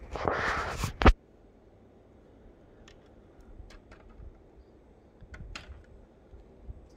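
Handling noise from a 1:18 scale die-cast model car being handled: about a second of rustling that ends in one sharp click, then a few faint light clicks and taps.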